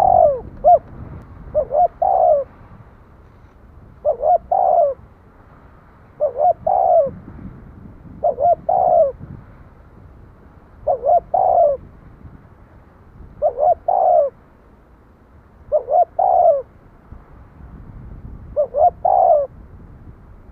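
Spotted dove cooing: a phrase of a few quick coo notes ending in a longer drawn-out coo, repeated about every two and a half seconds, around nine times.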